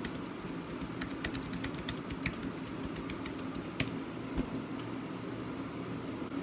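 Irregular light clicks and taps, mostly in the first four seconds, over a steady low room hum.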